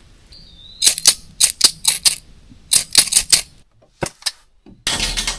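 An irregular run of about a dozen sharp clicks or snaps, in two quick groups and then two more, followed near the end by a short burst of rushing hiss.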